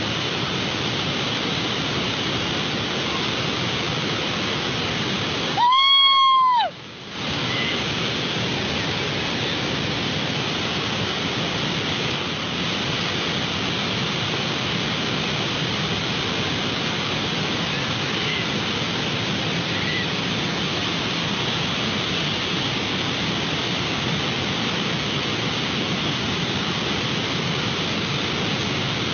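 Muddy floodwater rushing in a steady torrent. About six seconds in, a one-second electronic beep covers it, with the water sound cut out for that moment.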